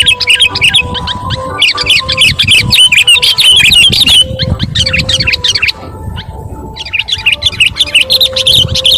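Sooty-headed bulbul (kutilang) chattering rapidly and excitedly in bursts of quick high chirps, with a short lull a little past the middle. A faint steady hum runs underneath.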